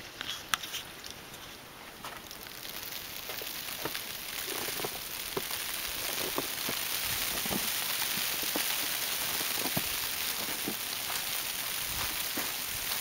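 Heavy snowfall: a steady hiss that builds over the first few seconds, with scattered soft ticks and pops.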